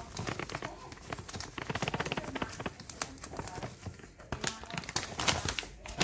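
Soda crystals poured from a box into a cup, a dense rattling patter of crystals hitting the cup. A few sharper knocks come near the end.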